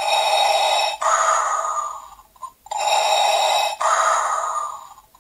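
Darth Vader Funko Pop Light and Sound figure, set off by pressing its head, playing Vader's mechanical respirator breathing from its built-in speaker. There are two full breaths, each an inhale followed by an exhale, about two and a half seconds apart.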